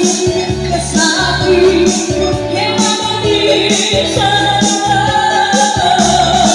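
Karaoke backing track with a steady beat, played loud, with a singer singing over it into a microphone.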